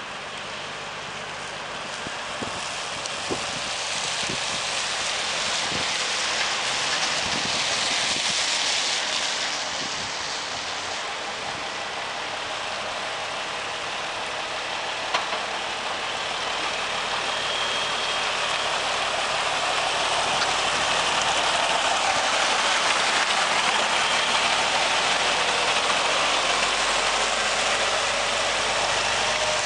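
Diesel engine of a 1975 Dodge Bighorn CNT 950 semi-truck running as the rig rolls through a turn and past, growing louder toward the end, over a steady hiss of tyres on wet pavement.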